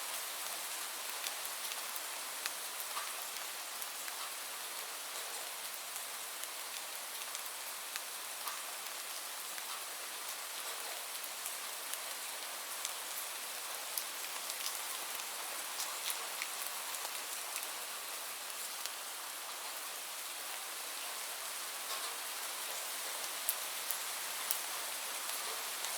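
Steady rainfall, an even hiss with scattered sharper drop taps.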